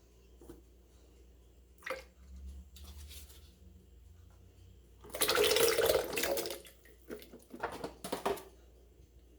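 Liquid poured into a blender jar: a splashing pour lasting about a second and a half, with a few knocks of containers or utensils on the jar before and after.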